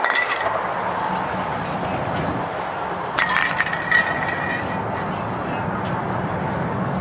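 Aerosol spray-paint cans clinking: a short cluster of metallic clicks right at the start and another, louder one about three seconds in. Steady freeway traffic noise runs underneath.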